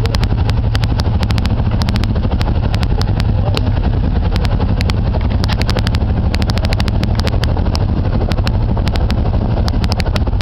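ATV engine running steadily under way, a loud low rumble with many sharp clicks scattered through it.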